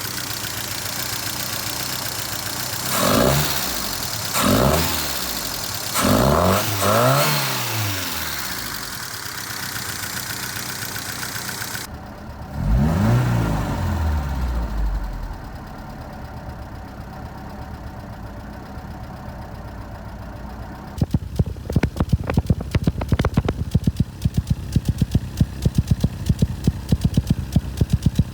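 1978 Fiat 124 Spider engine with a rough idle, blipped three times in quick succession and once more about halfway through, each rev rising and falling back to idle. In the last several seconds the idle breaks into a fast, uneven run of sharp pulses.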